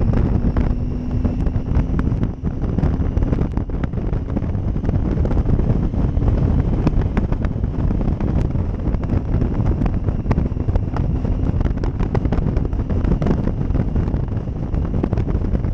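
Wind buffeting the microphone over the steady running of a Triumph Tiger 800 XCx's inline three-cylinder engine at cruising speed.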